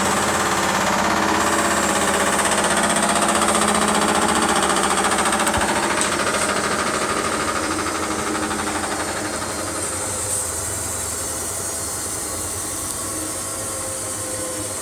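ISE W1607W washing machine on high spin, its drum running with a loud, fast banging rattle that fades away about two-thirds of the way through as the spin rate changes. The owner thinks the whole casing is hitting against something.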